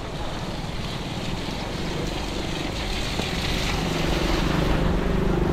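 Heavy rain falling as a steady hiss, with a motor vehicle's engine growing louder as it draws closer over the last couple of seconds.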